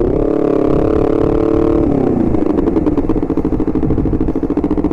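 Honda CBR250RR's parallel-twin engine running under way. The note climbs right at the start and holds for about two seconds, then drops and settles at a lower steady pitch.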